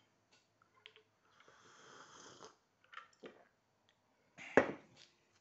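A person's breathing: a long soft breathy sound, then a couple of short sniffs, and one short sharp sound about four and a half seconds in.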